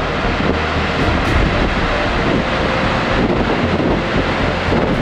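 Waterfall rushing steadily, with wind rumbling on the microphone.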